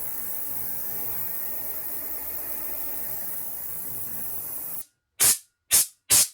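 Ultrasonic cleaner running its rinse cycle with a steady hiss, which stops abruptly about five seconds in. Then come four short blasts of compressed air from a blow gun, drying the gun parts.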